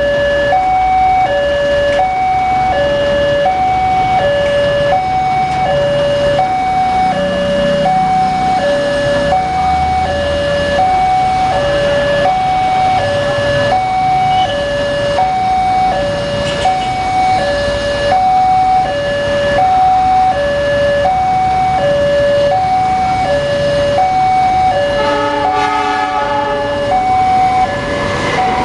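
Railway level-crossing warning alarm from a pole-mounted loudspeaker: an electronic two-tone signal alternating steadily between a high and a low note, about one high-low pair every two seconds, signalling that a train is approaching. Near the end a second, richer tone sounds over it for about two seconds.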